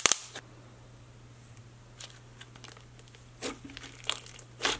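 Thick slime squeezed and pressed by hand, giving short sticky pops and clicks: one right at the start, then a quiet stretch, then three more in the second half.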